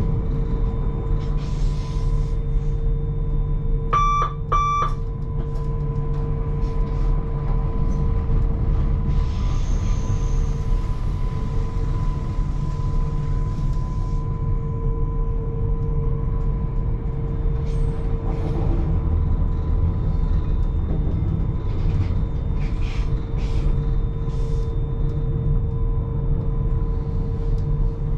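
Electric train running along the track, heard from inside the driver's cab: a steady low rumble with a constant whine. Two short electronic beeps sound in the cab about four seconds in.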